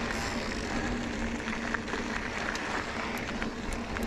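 Mountain bike climbing a dirt trail: tyres rolling over gravel with scattered small clicks and ticks, a steady low hum, and wind rumbling on the helmet camera's microphone.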